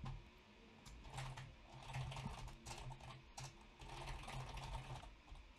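Computer keyboard being typed on: faint, irregular runs of keystrokes as a line of code is entered.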